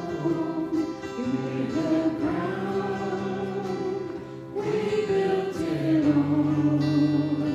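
Many voices singing a worship song together in slow, held notes, with instruments accompanying.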